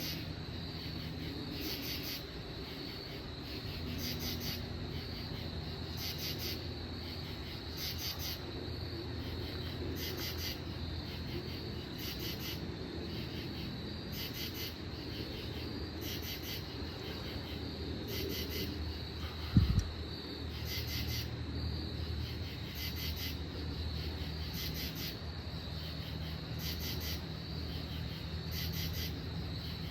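Northern katydids calling back and forth: short raspy pulsed calls repeating a little more than once a second, over a steady high insect trill and a low steady drone. A single short thump about twenty seconds in is the loudest sound.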